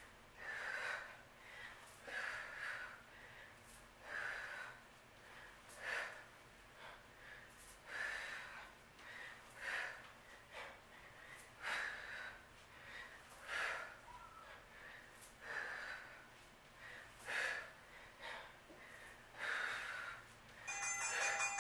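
A woman breathing hard in time with squat-to-deadlift reps with dumbbells: a forceful breath out about every two seconds. A brief electronic beeping tone near the end.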